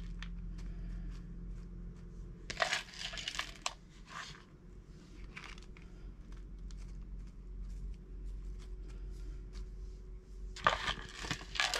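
Orchid bark chips rustling and crunching as fingers spread and press them into a plastic pot: scattered scratchy rustles and small clicks, with two louder bursts about three seconds in and near the end, over a faint steady low hum.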